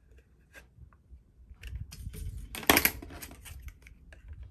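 Cardstock rustling and crackling as it is handled and lined up in a 1-inch circle punch, with a few light ticks, and one sharp crackle a little under three seconds in.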